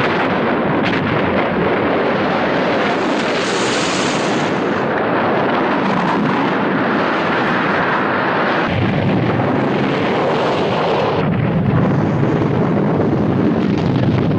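Volcanic eruption: a loud, continuous rushing noise of explosive blasts and ejected debris, turning deeper and heavier about two-thirds of the way through.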